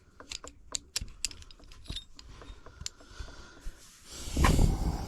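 Metal parts of a disassembled pipe wrench clinking and tapping as they are handled, a string of short sharp clicks. About four seconds in, a louder rushing noise swells up briefly.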